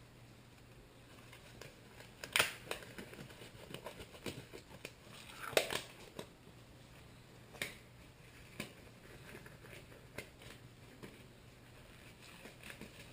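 Scattered light clicks and knocks of a camera being handled and set in position, with the loudest knocks about two and a half and five and a half seconds in, over a faint steady hum.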